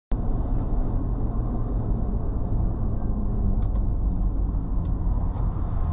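Steady low rumble of a car driving, engine and tyre noise heard from inside the cabin through a dashcam's microphone, cutting in abruptly right at the start.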